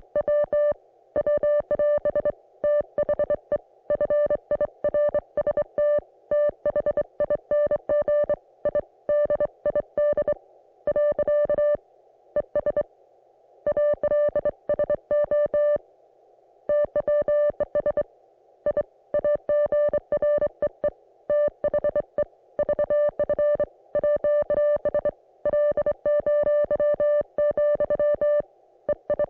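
Morse code (CW) coming through an Icom IC-718 ham radio receiver: a single steady beep keyed on and off in dots and dashes, with a hiss of band noise in the gaps between characters.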